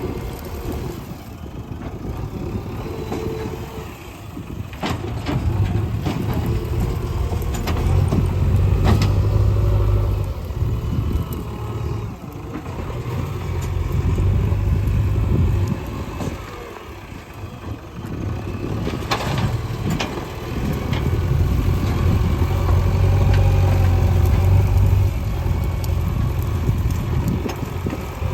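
JCB 3DX backhoe loader's diesel engine running, its level rising and falling several times as the load changes, with a few sharp knocks.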